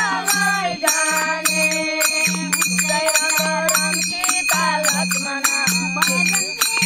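Women singing a devotional kirtan together, kept in time by small hand cymbals struck in a steady beat that leaves a ringing tone.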